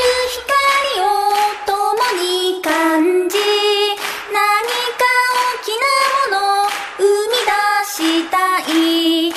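A song: a high voice sings a slow melody over sharp taps about twice a second.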